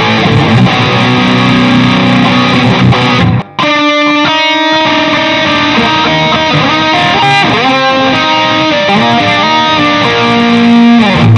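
Electric guitar played through a Nux MG-400 multi-effects unit on a distorted British-style lead amp preset. Thick distorted chords ring for about three and a half seconds, then after a brief break comes a single-note lead line with notes bent up and down in pitch.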